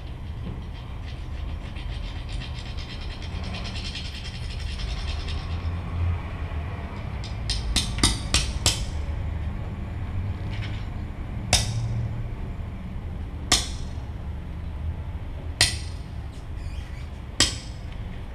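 Amplified plant-material instruments being played by hand: a scratchy rustling at first, then a quick run of sharp clicks and plucks, followed by single sharp plucks about every two seconds, over a steady low rumble from the amplification.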